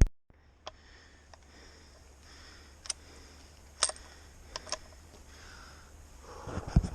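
Quiet outdoor background with a faint steady hiss, broken by a few short, sharp ticks, and a low rumble of wind on the microphone or handling noise rising near the end.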